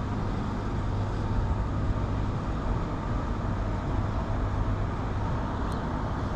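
Steady low rumbling background noise with no distinct events, apart from one faint short tick near the end.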